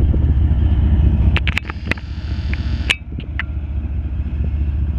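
Loaded coal train rolling past at close range: a steady low rumble of hopper cars on the rails, with a handful of sharp clicks and short squeals from the wheels in the middle. A mid-train diesel locomotive comes by near the end.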